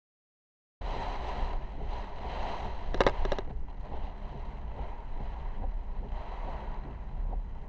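Typhoon wind and rain on a car, picked up by a dashcam's microphone: a steady rough rushing over a strong low rumble that starts abruptly under a second in, with a quick cluster of sharp clicks about three seconds in.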